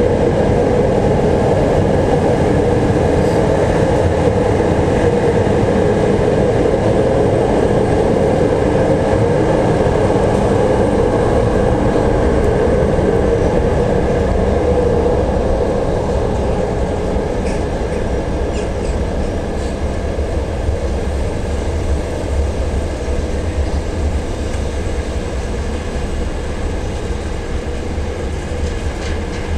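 Freight train of hopper wagons hauled by an electric locomotive rolling past, with a steady rumble of wheels on rail. The rumble eases a little about halfway through as the wagons go by.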